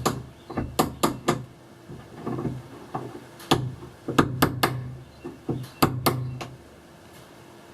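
Sharp knocks and taps in a few quick clusters of two or three, over a low steady hum.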